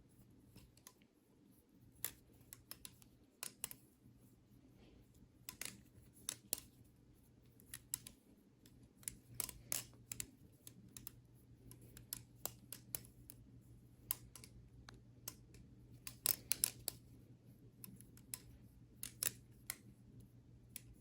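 Maxace Serpent Striker V2 balisong being flipped: irregular sharp clicks and clacks from its stainless steel handles swinging open and shut around the blade, often in quick clusters.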